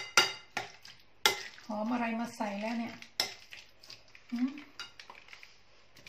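A metal spoon stirring a thick mayonnaise dressing in a ceramic bowl, clinking sharply against the bowl four times. A woman's voice murmurs briefly about two seconds in.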